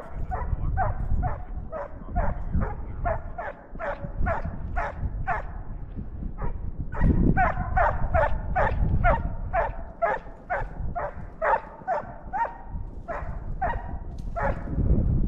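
Coyote hound baying on the track: a steady run of short barks, about two and a half a second, each dropping in pitch, with a brief break about six seconds in. The hound is running a coyote.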